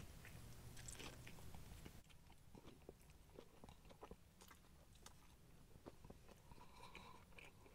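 Faint chewing of a mouthful of chicken burger, heard as scattered soft mouth clicks.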